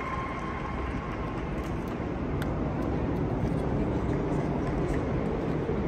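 Steady, low rumbling ambience of a large stadium with no distinct events, growing slightly louder after about two seconds.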